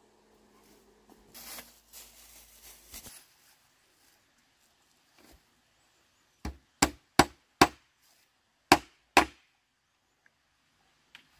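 Six sharp chopping blows in the second half, a blade striking something wooden, after a few seconds of faint rustling.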